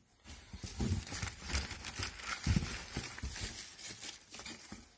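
Paper and cardboard packaging rustling and crinkling as fireworks packs are shifted around in a box, with a few soft knocks.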